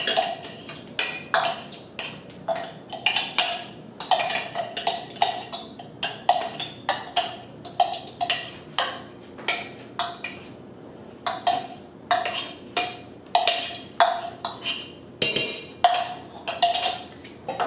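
Metal spoon knocking repeatedly against a clear container and the rim of a cooking pot, about two sharp taps a second, each with a short ring, as chopped onion is scraped out into the pot.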